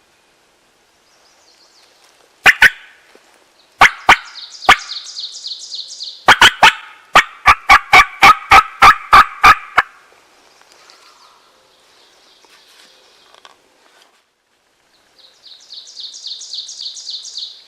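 A hand-played turkey call sounding a run of loud, sharp wild-turkey hen yelps: two, then three, then a string of about a dozen at roughly three a second. This is hen calling meant to draw in a gobbling tom. A fainter high, rapid songbird trill comes and goes in between, and again near the end.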